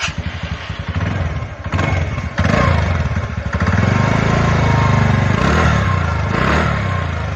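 TVS Ntorq scooter's single-cylinder engine running and revved, getting louder about two and a half seconds in as the throttle opens. It carries the rough, abnormal engine noise that the mechanic calls a very bad sound and blames on engine knocking.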